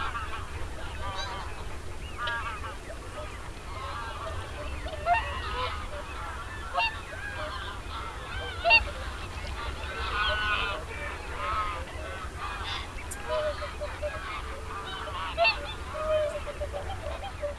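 A large flock of geese honking and calling continuously, many overlapping calls with a few louder honks standing out.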